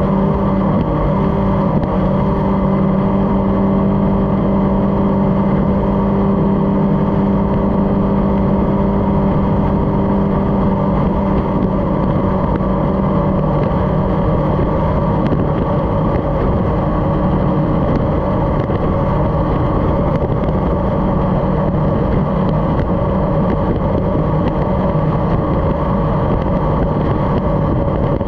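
Racing powerboat's engine running at high speed, a steady loud drone over the rush of water and wind. About halfway through, the note drops slightly and becomes less even.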